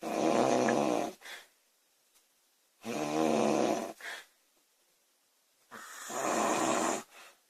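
A woman snoring loudly during sleep. There are three snores about three seconds apart, each lasting about a second and followed by a short, softer sound.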